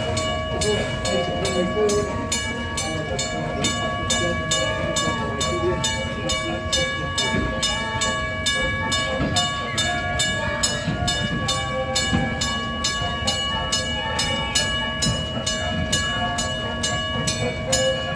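Steam locomotive pulling away with a train, its exhaust chuffing in an even beat of about three a second. Several steady high tones run alongside, over a low rumble of the train.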